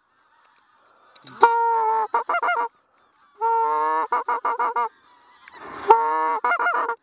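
Greylag goose call blown three times, each phrase a long honk followed by a quick run of shorter honks, imitating greylag geese to lure a passing flock.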